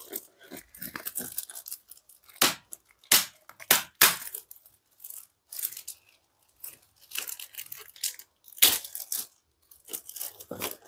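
Clear plastic wrapping around a new laptop crinkling and crackling in fits and starts as it is pulled open by hand, with a few sharp, louder crackles.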